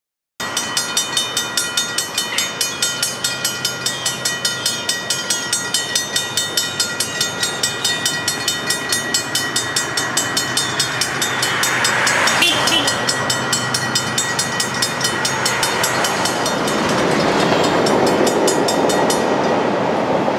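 Railroad crossing bell ringing in rapid, even strokes while the warning lights flash. About halfway through, the ringing gives way to a louder, steady rushing noise of a train passing over the crossing.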